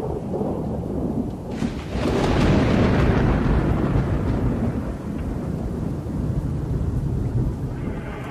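Typhoon storm: a deep, steady rumble of wind and rain, with a hissing swell about a second and a half in that eases off over the next few seconds.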